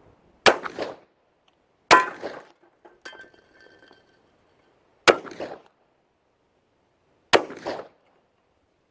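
Four shots from a TNW Aero Survival Rifle, a semi-automatic 40-caliber carbine, firing powder-coated cast lead handloads, spaced irregularly over several seconds, each with a short echoing tail. A fainter metallic ring sounds about three seconds in.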